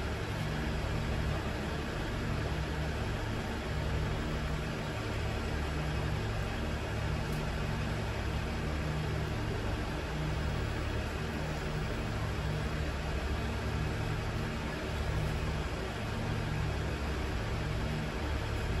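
Steady low hum with an even hiss over it, unchanging throughout: the background drone of a covered railway station platform.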